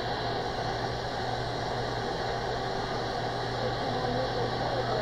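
Steady hiss of shortwave static from an RTL-SDR receiver with an upconverter, demodulating AM and heard through a speaker. A steady low hum runs underneath.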